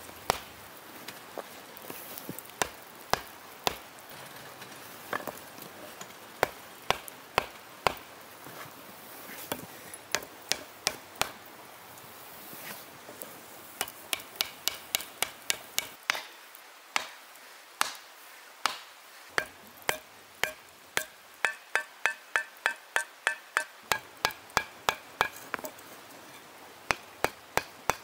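Hand forging with a stone hammer on hot axe stock: sharp, irregular blows, then quick runs of about four blows a second in the second half, some of them leaving a brief ring.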